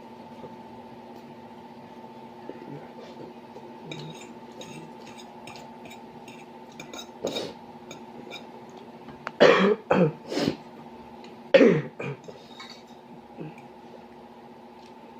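A person coughing in short fits: one cough about seven seconds in, then a run of three about nine and a half seconds in and another pair near twelve seconds, after small mouth clicks and smacks of eating. The coughing comes from eating very spicy noodles.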